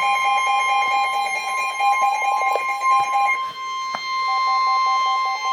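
Emergency alert tone for a National Weather Service tornado warning: a steady, loud high tone with a second, lower tone beeping in rapid pulses over it. The pulsing beep breaks off briefly near the middle of the stretch and then resumes.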